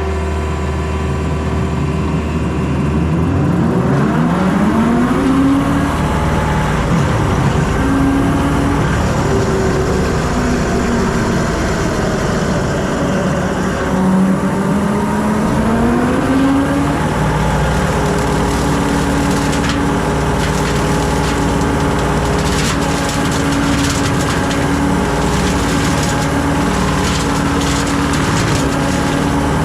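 John Deere 326E skid steer's diesel engine revving up from idle about three seconds in, its pitch wavering up and down, then holding steady at high revs from about halfway. From about two-thirds of the way in, crackling and snapping of brush being cut by the hydraulic brush cutter runs over it.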